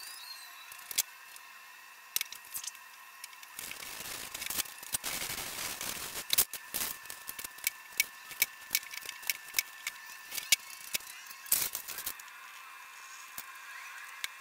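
Hands at work on a worktable: irregular clicks, taps and light knocks of sheet stock being set down and masking tape being pulled and pressed on, busiest in the middle and quieter over the last couple of seconds.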